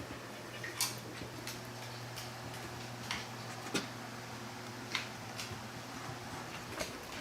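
Scattered light taps and clicks at irregular moments as kittens play, over a steady low hum that stops about six and a half seconds in.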